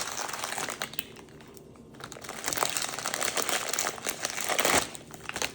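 Crinkly packaging of a toy prize being handled and torn open: a dense, crackly rustling with many small clicks, easing off briefly about a second in, then picking up again.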